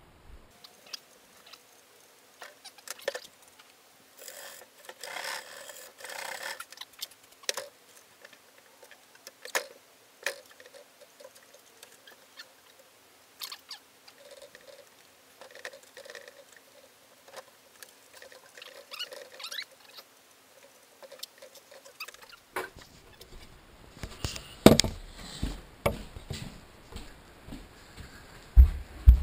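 Cabinet doors and painting gear being handled: scattered light clicks, taps and scrapes, with a stretch of soft rustling a few seconds in. Near the end the background changes and a few louder knocks come as a door is carried.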